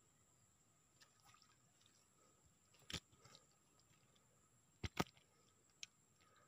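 Near silence broken by a few sharp clicks: one about three seconds in, a louder close pair about five seconds in, and a smaller one near the end, over a faint steady high tone.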